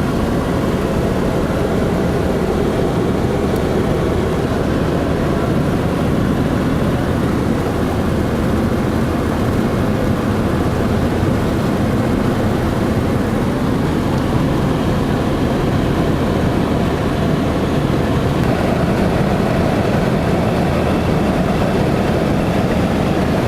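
Steady low rumble of a moving vehicle, unchanging throughout.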